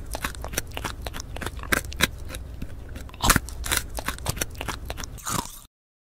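Crisp crunching and crackling of raw salad (shredded cabbage and cilantro) being handled on a plate: many small irregular clicks, with a few louder crunches, that cut off abruptly near the end.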